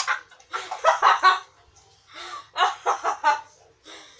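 Two runs of short, high-pitched human vocal cries, each about a second long, with a sharp, choppy quality, as a person reacts to being doused with water and flour.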